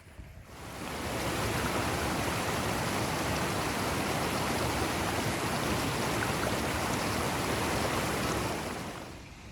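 Blizzard wind rushing steadily, an even hiss with no gusts or tones, fading in over about a second and fading out near the end.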